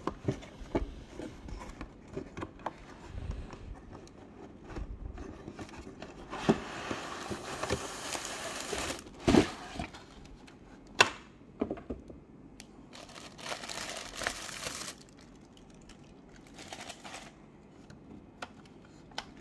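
Cardboard display box and plastic packaging being handled while unboxing a diecast model car: knocks and scrapes of the box, and two longer spells of plastic air-cushion wrap crinkling as it is pulled off the model, with a few sharp clicks.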